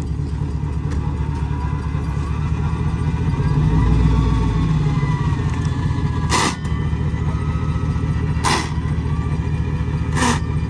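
Chevrolet Silverado pickup's engine running under load while the truck is stuck in mud, growing louder for a couple of seconds midway. Three short hissing bursts come in the second half.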